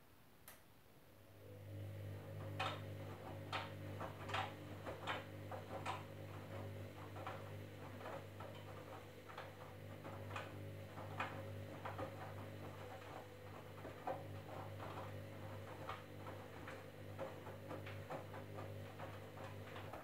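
Candy front-loading washing machine's drum motor starts up about a second and a half in and runs with a steady hum as the drum turns during the wash. Irregular clicks and knocks sound over the hum.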